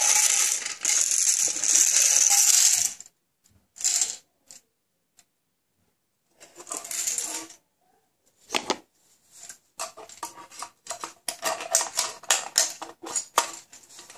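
A Jelly Belly mini jelly bean machine shaken by hand to free a coin stuck inside it, the coin and contents rattling. A steady rattle for about three seconds, two short bursts, then a run of quick clicks and rattles.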